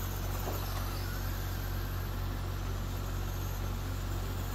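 Radio-controlled race cars running laps on a dirt oval: a steady, even noise with a constant low hum underneath.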